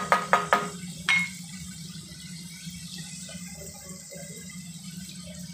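Wooden spatula knocking against a nonstick frying pan, four quick knocks and then a sharper one with a brief ring about a second in, as it is set down. After that a steady hiss of cucumber stir-frying in the pan over a low steady hum.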